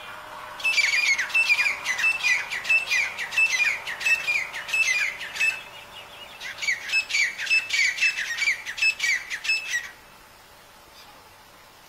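Francolin calling: two fast runs of harsh, high-pitched notes repeated rapidly, each lasting a few seconds, with a short break between them.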